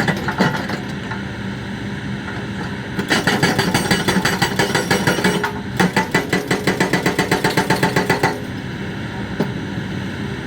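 Hydraulic breaker on a Kobelco excavator hammering rapidly, about eight to nine blows a second, in two bursts of a couple of seconds each with a brief break between them. The excavator's diesel engine runs steadily underneath.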